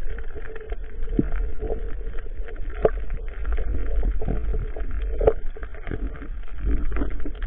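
Muffled underwater rumble picked up through a waterproof camera housing, with scattered clicks and knocks while a speared fish is handled on the spear shaft.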